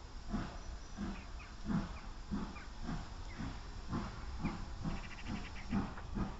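Steam locomotive working, its exhaust chuffing in a regular beat of about two a second that quickens slightly. A brief metallic rattle comes about five seconds in.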